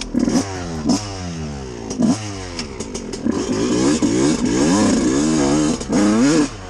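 Two-stroke engine of a Suzuki RM125 dirt bike revving in a series of short rising pulls, the pitch climbing and dropping again and again as the bike pulls away.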